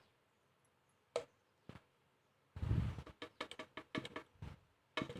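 A spoon knocking and scraping against a blender jar as ice cream is shaken off into it: a few sharp clicks, a muffled thump about two and a half seconds in, then a quick run of taps.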